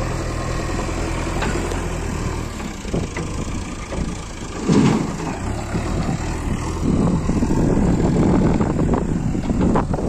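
Diesel engine of a JCB 3DX backhoe loader running under load as the machine carries a bucket of soil, with a tractor's diesel engine idling alongside. It is a steady low hum at first, with a brief loud surge about five seconds in, and it runs louder and rougher from about seven seconds on.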